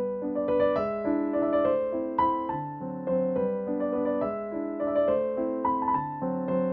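Soft background piano music: a light melody of short notes over held lower chords.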